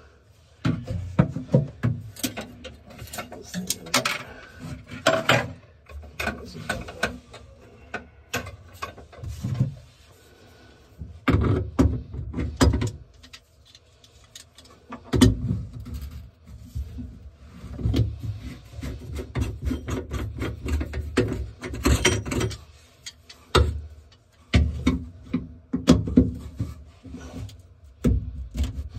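Pliers and hands working on a sink drain's metal tailpiece and nut under the basin, making irregular clanks, clicks and knocks with occasional low bumps.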